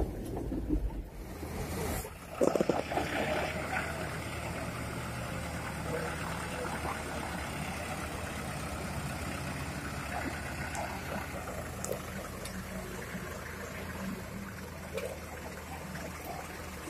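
Heavy diesel machinery engine running steadily under a rushing noise. A brief louder clatter comes about two seconds in.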